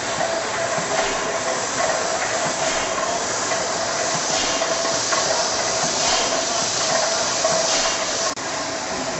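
The Firgrove Mill's 1907 horizontal steam mill engine running steadily, a rhythmic hiss and clank of its steam and moving parts repeating about once every three quarters of a second over a constant hum.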